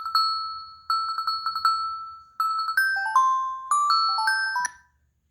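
Google Pixel 3a preloaded ringtone: a bright electronic chime tune of quick repeated notes on one pitch in several runs, then a short melody stepping up and down, which then stops.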